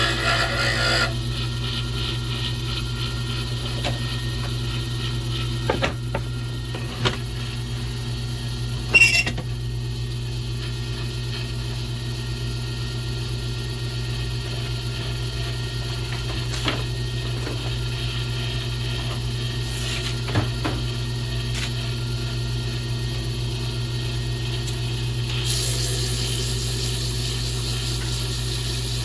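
Wood lathe motor running steadily with a constant hum while a pen blank is turned. A few sharp clicks and knocks fall in the first ten seconds, and a higher hiss comes in near the end.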